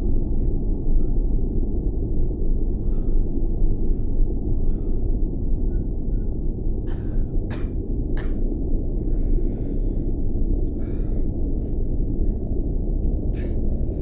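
A steady low rumble, with a man's short breaths and gasps scattered through it.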